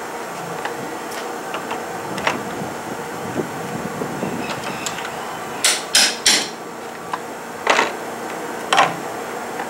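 Pneumatic rivet gun setting pop rivets in the bottom molding rail, in short sharp bursts: three in quick succession a little past halfway, then two more about a second apart near the end, with a few faint clicks before them.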